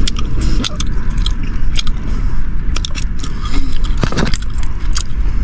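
A person chewing and crunching food close to the microphone, with irregular sharp crunches and mouth clicks over a steady low rumble.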